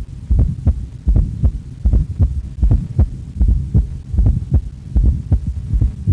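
Heart sounds through a stethoscope with a fourth heart sound (S4), in a steady rhythm of low thuds a little more than once a second, each beat a cluster of close thumps. This is the atrial gallop heard just before S1 when the atria push blood into a stiff ventricle.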